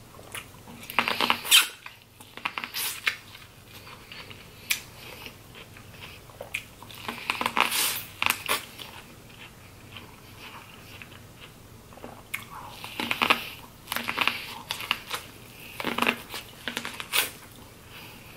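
Close-miked eating of crab legs in butter sauce: chewing and crackling, squeaky shell and mouth noises in irregular bursts, the loudest about a second and a half in.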